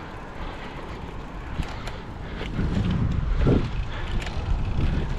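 Wind buffeting the microphone while riding a bicycle, over steady tyre and road noise; the low rumble grows louder about halfway through.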